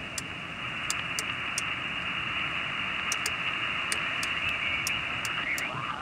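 Steady hiss of HF band noise from a Clansman PRC-320 manpack transceiver's receiver, held to a narrow voice-width band. A faint voice starts to come through the noise near the end.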